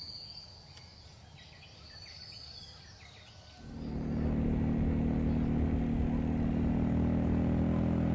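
A faint high-pitched whine at first. About halfway in it gives way suddenly to a motorcycle engine running steadily and loudly close by.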